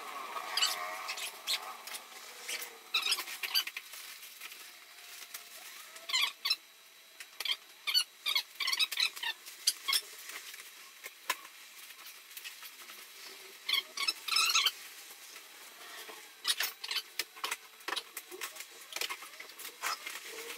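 A rooftop tent being folded shut and its travel cover pulled over: irregular clusters of clicks, knocks and rustles from canvas and frame being handled, with occasional short squeaks.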